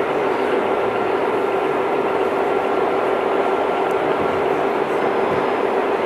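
O scale model trains running on the layout: a steady rolling rumble and whir of locomotive motors and wheels on the track, with a constant hum underneath.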